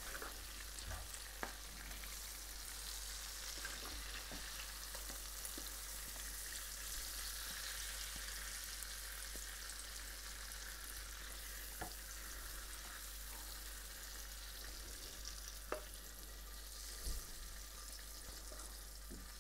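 A hot pan of shrimp in a thick sauce sizzling softly after the flame is off, a steady quiet hiss. A few light clicks are heard, near the start, about midway and later on.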